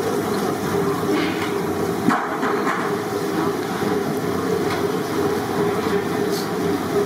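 Steady rumble and sizzle of chicken pakoras deep-frying in a large wok of oil over a gas burner, with a few metal knocks and a sharp clank about two seconds in.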